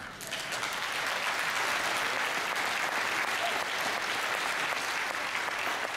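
Audience applauding, setting in at once and holding steady.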